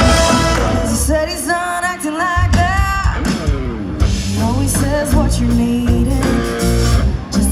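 Background music: a pop-rock song with a sung melody over guitar and a steady beat.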